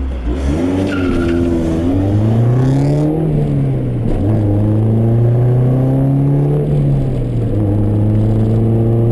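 1992 Honda CRX's DOHC four-cylinder engine heard from inside the cabin, accelerating away through the gears: the engine note climbs, drops at an upshift about three seconds in, climbs again, drops at a second shift about seven and a half seconds in, then rises slowly.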